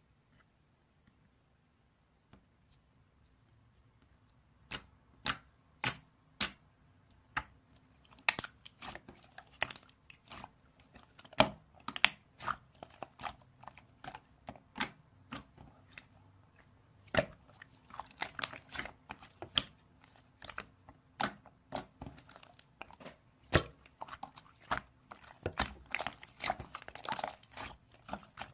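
Slime being squeezed and worked by hand, making irregular sharp clicks and pops that start about five seconds in and come thicker toward the end.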